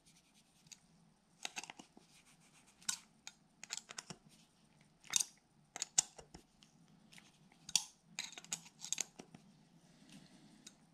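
Hex screwdriver turning small screws into an RC crawler's beadlock wheel rim: faint, scattered clicks and scrapes as the driver tip engages and the screws are run in hand-tight.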